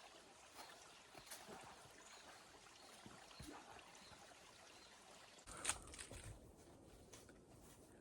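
Near silence: faint outdoor ambience, with a single brief knock about five and a half seconds in.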